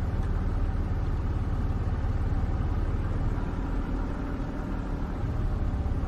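Game-drive vehicle's engine idling steadily, its sound mostly low-pitched and evenly pulsed.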